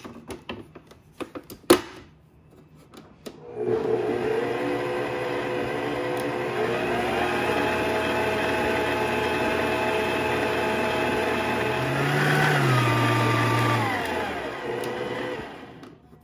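A few clicks and knocks, then an electric mixer with a wire whisk attachment runs, whipping the rock salted cheese milk-foam mixture until foamy. Its motor hum steps up in pitch twice, then drops and stops about a second before the end.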